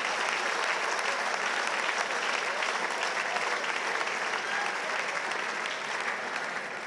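Large audience applauding, the clapping slowly dying away near the end.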